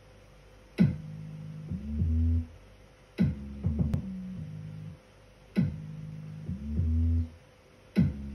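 Instrumental intro of a pop song without vocals: four sharp percussive hits about two and a half seconds apart, each followed by low bass and synth notes.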